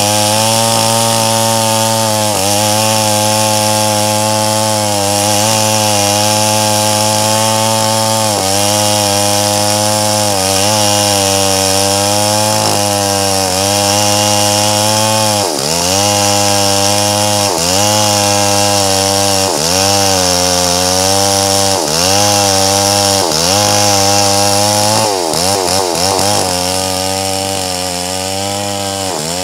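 Stihl MS 381 two-stroke chainsaw running at full throttle, ripping lengthwise through a large red meranti log. In the second half its engine pitch dips and recovers about every two seconds as the chain bites under load, with a quicker wobble near the end, where it runs slightly quieter.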